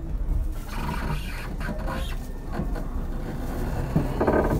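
Tobu 30000 series electric train running between stations, heard from inside a motor car: a steady low rumble of wheels on rail and running gear. There is a short louder burst near the end.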